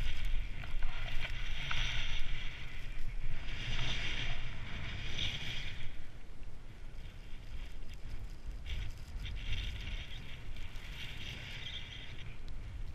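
Skis hissing through snow on a steep descent, swelling and fading with each turn, over a steady rumble of wind on the GoPro's microphone.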